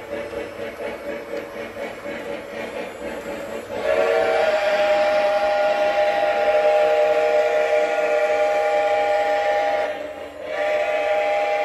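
Lionel Lehigh Valley #2101 O-gauge steam locomotive's onboard sound running with a quick, even chuffing. About four seconds in it sounds a long steam whistle of several tones together, held for about six seconds; the whistle breaks off briefly near the end and sounds again.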